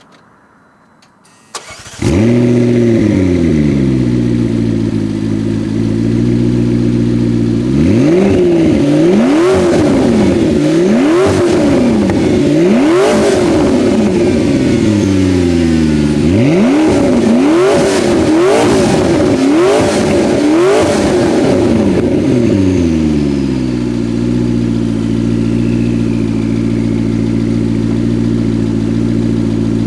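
McLaren MP4-12C twin-turbo V8 with the factory sport exhaust starting up about two seconds in, flaring and then easing down to idle. It is then revved about nine times in quick succession, each rev rising and falling sharply, before settling back to a steady idle.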